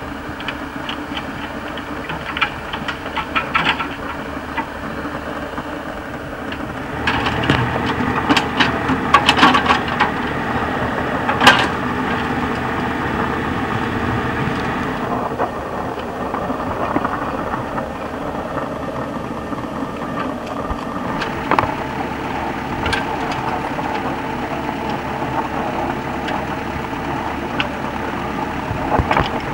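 Mini excavator at work, its diesel engine running steadily. About a quarter of the way in comes a spell of metal clatter and knocks, with one loud clank just before halfway, and a few more knocks about three-quarters through.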